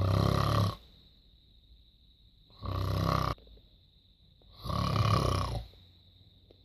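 Snoring: three loud, rasping snores, each under a second long, coming about every two seconds.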